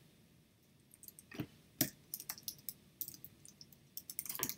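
Computer keyboard keystrokes: a few scattered key clicks, then a quicker run of keystrokes near the end.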